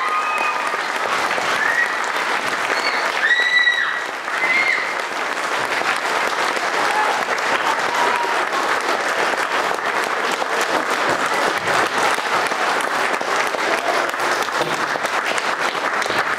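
Audience applauding steadily after a chorus performance, with a few high cheers and whoops over the clapping in the first five seconds.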